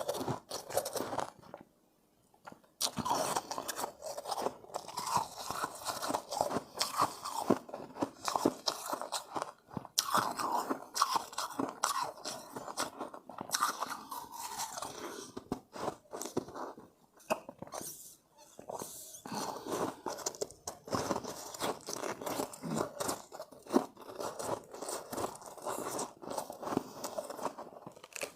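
Close-up crunching and chewing of refrozen shave ice, a dense run of crackly bites and chews, with a brief pause about two seconds in.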